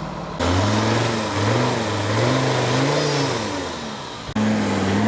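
Diesel engine of a Mercedes-Benz Unimog off-road truck revving up and down again and again as it churns through deep snow with its wheels spinning. The sound breaks off abruptly and starts again shortly before the end.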